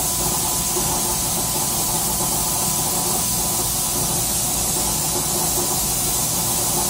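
Transmission test stand (dyno) running steadily while pressure-testing a boat transmission's valve body: an even hiss with a few steady hums from its drive motor and hydraulic pumping, unchanging throughout.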